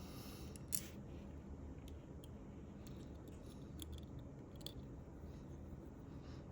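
A few faint, light clicks of small hand tools and parts being handled, over a steady low hum.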